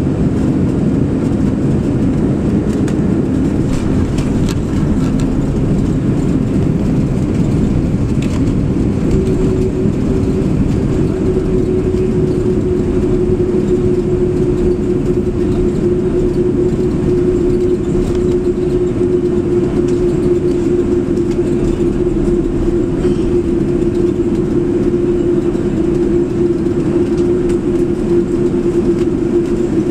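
Cabin noise of an Airbus A300-600 on its landing roll: a loud, steady rumble of the engines and the runway, with a steady hum that sets in about nine seconds in and sinks slowly in pitch.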